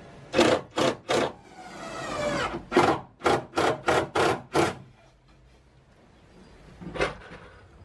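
Wooden drawer being worked in its plywood cabinet: wood rubbing and scraping on wood in a run of short strokes, one of them a longer squeaky slide, then a single knock near the end.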